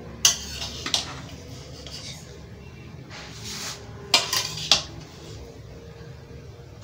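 A metal slotted spoon knocking and scraping against a large metal pot while turning over cooked biryani rice: a sharp clink just after the start, another near one second, a scrape around three seconds, and a quick run of clinks about four to five seconds in.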